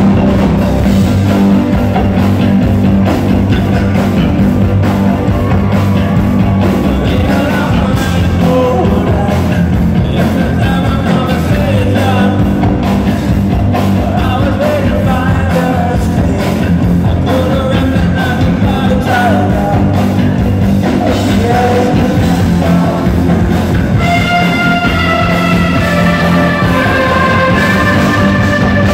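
Loud live rock band, heard from among the audience: a male singer over driving drums, bass guitar and synthesizers. A high sustained melodic line comes in near the end.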